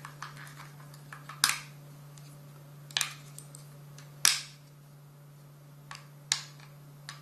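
AAA batteries being pressed into a walkie-talkie's battery compartment: about five sharp plastic-and-metal clicks spaced a second or so apart, over a steady low hum.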